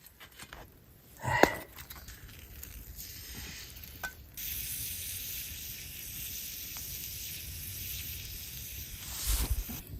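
Meat sizzling on a hot pan over a wood fire: a steady high hiss that starts suddenly about four seconds in and cuts off near the end. Earlier, a single short metallic clank.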